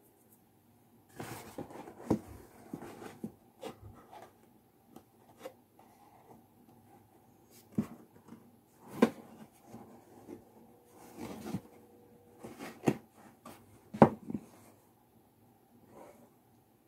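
A folded cardstock paper mask being handled and turned: rustling and crinkling card with scattered taps and knocks, starting about a second in, the loudest knock a few seconds before the end.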